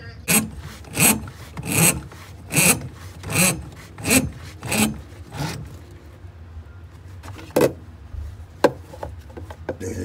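Steel drain-snake cable rasping against a rusty drain pipe as it is drawn back out to clear a stoppage. About eight scraping strokes come roughly three-quarters of a second apart, then a few single scrapes near the end.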